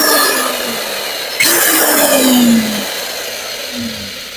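Bosch GDC 14-40 marble saw's motor running at full speed, then winding down as the trigger is let go. About a second and a half in it is switched on again, runs briefly and spins down with a falling whine: the new trigger switch works.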